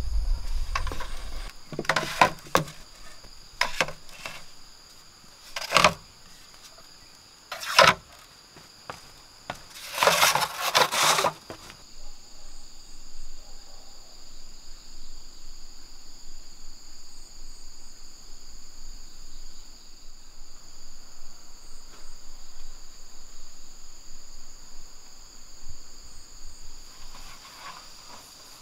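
Insects buzzing steadily at two high pitches. In the first dozen seconds, several sharp knocks and a longer rustle of green bamboo being handled while fish traps are made.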